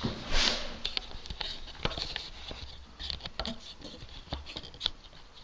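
Irregular light clicks and knocks of a plastic shower waste fitting and its parts being handled and unpacked, with a brief rustle near the start.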